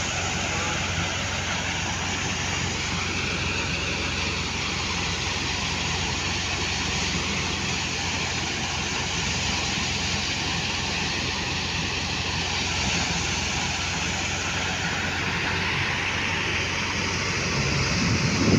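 Wheat thresher running steadily: a continuous low machine hum under an even rushing noise, swelling louder right at the end.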